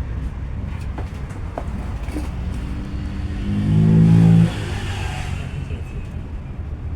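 Isuzu Mu-X turbodiesel engine idling, then revved once about three seconds in, the engine note rising with a hissing rush before dropping sharply back to idle. The hiss is the loud turbo noise whose cause is being traced.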